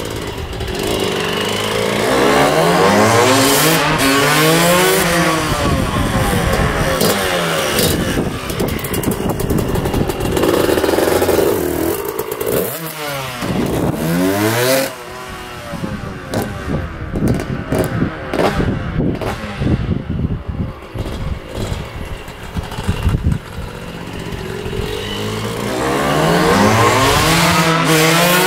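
1999 Suzuki RM125 two-stroke dirt bike engine being ridden hard, its pitch climbing again and again as it revs through the gears into the power band. It sweeps down and back up about halfway, runs quieter and choppier for a while, then revs up again near the end. The freshly rebuilt engine is running cleanly, without bogging, with jetting spot on.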